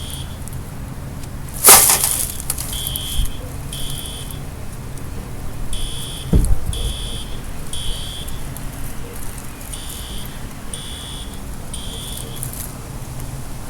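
Fire alarm horn sounding the temporal-three evacuation code: groups of three short high-pitched beeps about half a second apart, with a pause between groups. A loud rush of noise cuts in about two seconds in, and there is a low thump about six seconds in.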